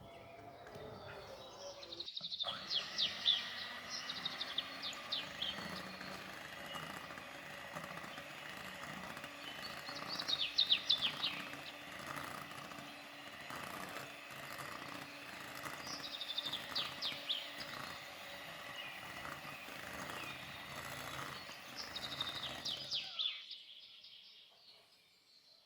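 Birds chirping in quick bursts roughly every six or seven seconds over a steady background, fading out near the end.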